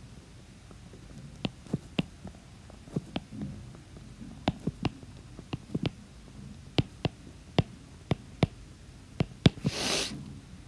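Stylus tapping and clicking on a tablet screen while handwriting, in irregular sharp clicks about two a second. A short hiss comes near the end.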